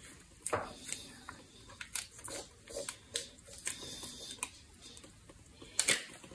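Plastic pouch of Velveeta cheese sauce being squeezed out over a pot, with soft crinkling and squishing and scattered small clicks, and a sharper click shortly before the end.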